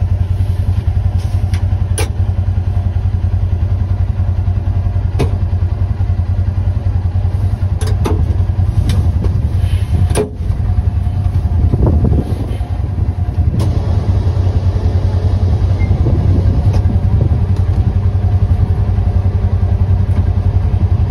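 Kubota Sidekick utility vehicle's engine running steadily as it drives forward pushing snow with a front-mounted plow, with a few sharp knocks through it.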